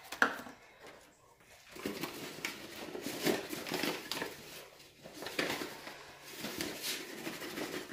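Flour being scooped with a half-cup measuring cup and handled over a mixing bowl: repeated rustling and scraping with light knocks, and one sharp knock just after the start.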